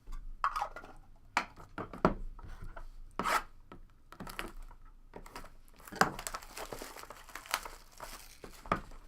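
Plastic shrink-wrap being torn off and crinkled on a sealed box of trading cards, in a run of irregular sharp crackles and rustles.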